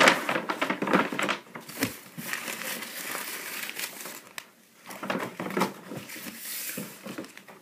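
Folded paper slips and a small gift bag crinkling and rustling as they are handled and the slips are dropped into the bag, in an irregular run of crackles with a short lull a little before the end.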